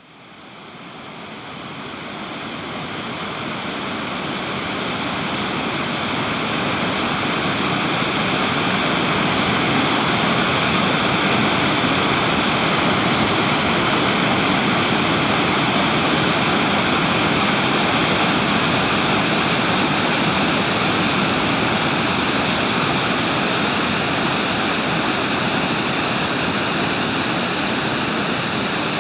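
A dense, steady rushing noise, like falling water, that fades in over the first several seconds and then holds level, with a faint ringing colour in the upper range.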